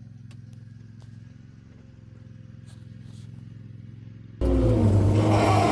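Mini excavator's diesel engine running, a steady low hum that turns abruptly much louder about four seconds in.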